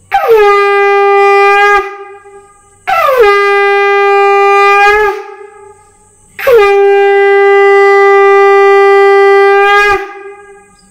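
Conch shell (shankha) blown three times, sounding the evening sandhya call. Each blast swoops down in pitch into a steady held tone; the third is the longest, about three and a half seconds.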